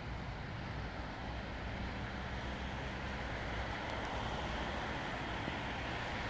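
Distant road traffic: a steady hum of cars and trucks on a multi-lane road, growing slightly louder about halfway through.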